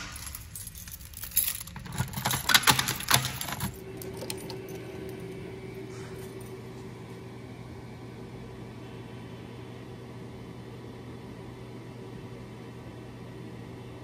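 Keys jangling and clicking in irregular bursts for the first few seconds, at a Notifier pull station with a key lock. Then a steady hum with a low, even tone from an air handler's supply fan, driven by variable-frequency drives, running.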